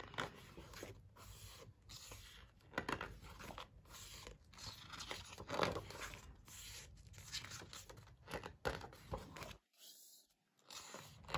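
Pages of a hardcover photo book being turned by hand: soft paper swishes and rustles several times, the strongest about three and five and a half seconds in, with a brief complete silence near the end.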